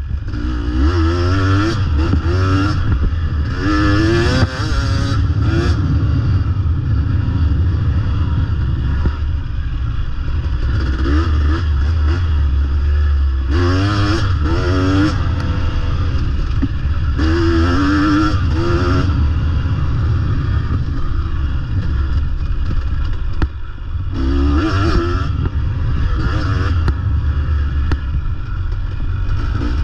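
2023 KTM 250 XC two-stroke dirt bike engine under way, its revs climbing and dropping again and again as it is ridden through the laps, over a constant heavy low rumble.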